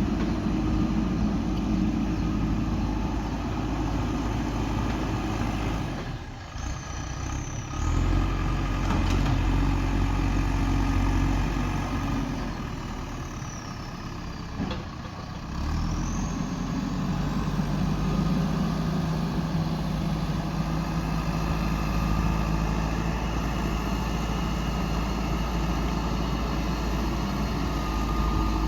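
JCB 3DX backhoe loader's diesel engine running as it works, its note dropping away twice, about six seconds in and again around twelve to sixteen seconds, before picking back up.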